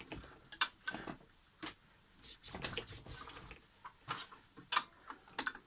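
Scattered light clicks and knocks as metal parts and screws of a sliding mitre saw are handled, the sharpest knock near the end.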